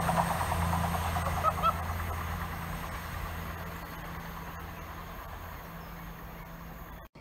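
East Midlands Trains Class 222 Meridian diesel unit running away down the line, its engine hum and wheel noise fading steadily. Two short high chirps sound about a second and a half in.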